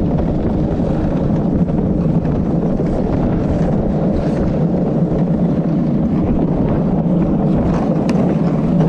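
Luge cart rolling fast down an asphalt track: a steady rumble of its wheels on the paving, with wind on the microphone.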